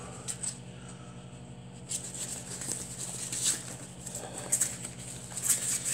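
Fabric wrist blood-pressure cuff being wrapped round the wrist and its Velcro strap pressed shut: a series of short, raspy rustles, most of them in the second half.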